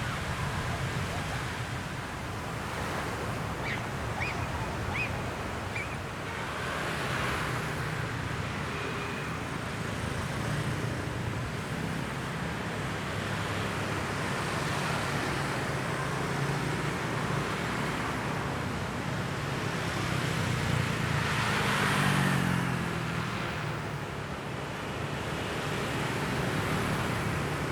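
Surf washing on a beach mixed with a steady hum of road traffic. About two-thirds of the way in, one vehicle passes close, its pitch falling as it goes by.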